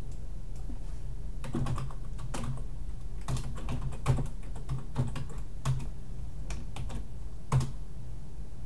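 Computer keyboard keystrokes typing commands into a terminal, clicks in irregular runs with a few harder key presses about four and seven and a half seconds in, over a steady low hum.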